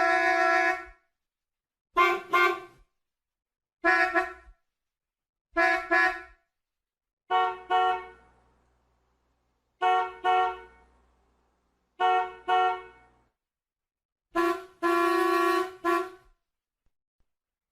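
Car horns honking: a long blast, then quick double toots about every two seconds, then another long blast followed by a short toot near the end. Each blast is a steady pitched tone that cuts off cleanly into silence.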